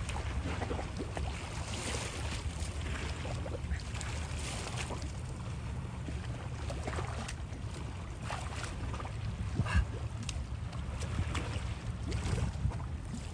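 Kayak paddles dipping and splashing in the water at irregular strokes, over a steady low rumble of wind on the microphone.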